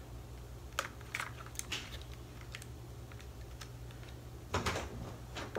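Hands handling a Canon PowerShot SX420 IS compact camera and its packaging: scattered light clicks and rustles, with a louder rustle about four and a half seconds in, over a low steady hum.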